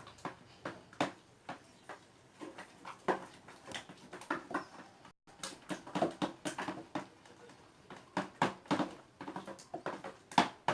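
Homemade slime mixture being stirred by hand in a container: irregular clicks and taps of the stirrer against the bowl and the sticky mix, with a brief dropout about halfway.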